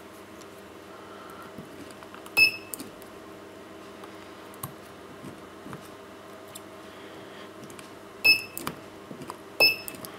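Spot welder firing through a handheld welding handle onto a thin metal strip three times, once about two and a half seconds in and twice near the end; each weld is a sharp snap with a short high beep. A steady low hum runs underneath.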